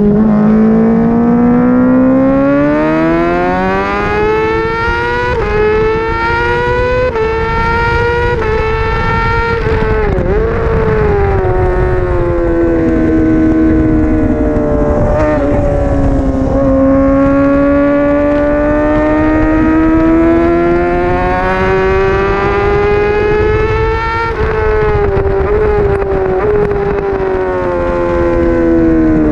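A Honda CBR600RR's 599 cc inline-four engine pulls hard at high revs, climbing in pitch with quick upshifts in the first several seconds. Its pitch wavers and drops for braking and downshifts around ten and fifteen seconds in, then climbs steadily again and falls off near the end. Wind rush sounds throughout.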